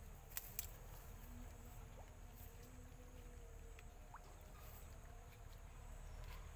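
Quiet outdoor ambience: a steady low rumble with two sharp clicks about half a second in.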